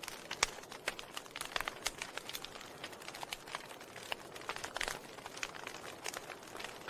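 Wood fire crackling in a fireplace: irregular sharp pops and snaps from the burning logs over a steady soft hiss.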